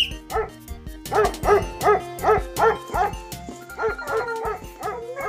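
Animal-like yelping calls over background music: a run of about six short yelps, roughly three a second, starting about a second in, then a few gliding calls.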